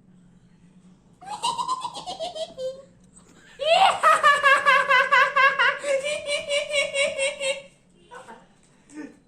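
High-pitched laughter in two bouts. A short run of laughs falls in pitch, and after a pause a longer run of rapid, evenly pulsed laughs follows.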